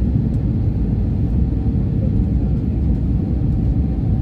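Steady low rumble of an Airbus A320neo airliner's engines and airflow, heard inside the passenger cabin during the approach, with a faint steady hum laid over it.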